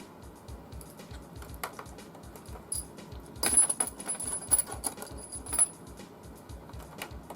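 Small metallic clicks and clinks of hand tools working at a stuck screw, with a denser burst of louder clattering about three and a half seconds in.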